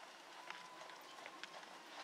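Faint hoofbeats of a horse trotting on a sand arena: a few soft, irregular thuds.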